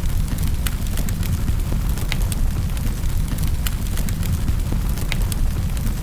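Wood fire crackling in a fireplace: sharp pops and snaps several times a second over a steady low rumble of the burning fire.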